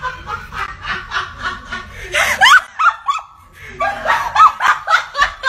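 A person laughing hard in quick, high-pitched bursts, with a short lull in the middle.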